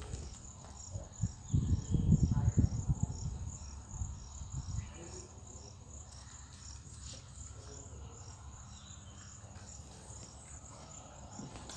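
An insect chirping in a steady, evenly spaced run of high-pitched pulses. A cluster of low thumps and rustling comes about one and a half to three seconds in, and is the loudest sound.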